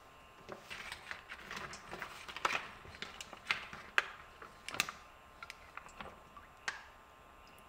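Irregular light clicks, taps and short rustles of small objects being handled, in an uneven run of about six seconds, with a few sharper clicks in the middle.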